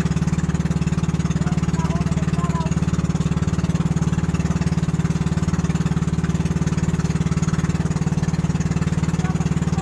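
Boat engine running steadily at constant speed, a low, even hum with a fast pulse.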